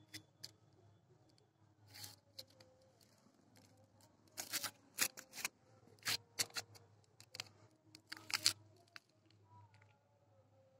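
Short rustling and scratchy scraping noises in irregular clusters, from a kitten's fur rubbing against a phone held close to it. A faint low hum runs underneath.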